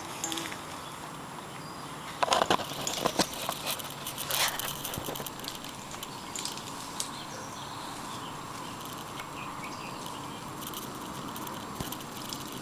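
A cluster of sharp clicks and rustles about two seconds in, lasting a couple of seconds, over a steady outdoor hiss.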